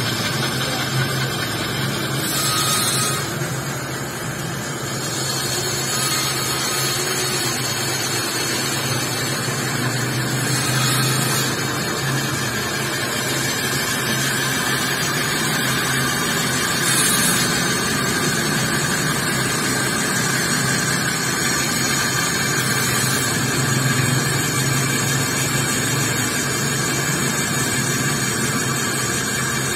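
Electric drill mounted in a stand running steadily under load, a spiral end mill cutting into a metal motorcycle clutch cover. There is an even motor hum with a few brief higher-pitched bursts.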